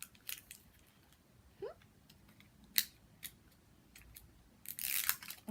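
Plastic packaging of an L.O.L. Surprise ball being worked open by hand: a few sharp plastic clicks, the loudest just under three seconds in, then a short burst of crinkling and tearing near the end as a stuck wrapper layer is peeled away.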